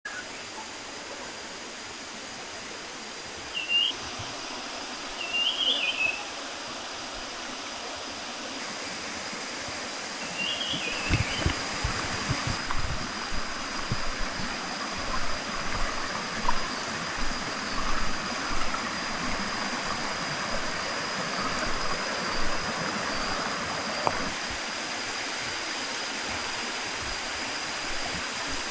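Waterfall and stream water rushing and cascading. It grows louder and more splashy about a third of the way in, with a steady high-pitched tone and a few short chirps over it early on.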